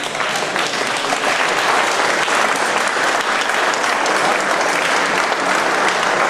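A small crowd of spectators applauding, with steady clapping throughout.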